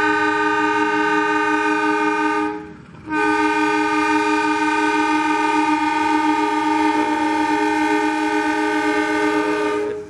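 Diesel locomotive horn sounding two long blasts, a steady chord of several tones. The first ends about two and a half seconds in; after a short gap the second is held for about seven seconds, then cuts off.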